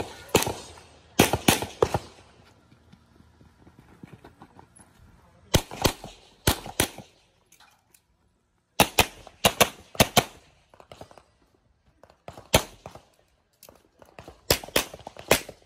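Gunshots fired in quick strings of several shots, each string followed by a pause of a few seconds before the next. Each shot cracks sharply and rings out briefly.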